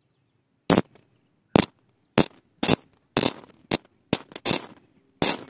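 Short crackling zaps of an electric arc from a homemade 12-volt battery welder, the nail electrode struck against metal about nine times at irregular intervals.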